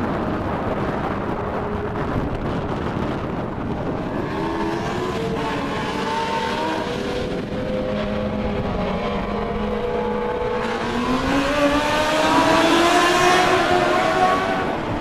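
Race car engines running laps on a dirt oval, their pitch rising and falling with the throttle. One grows louder and climbs in pitch about eleven seconds in as it comes past, then drops away near the end.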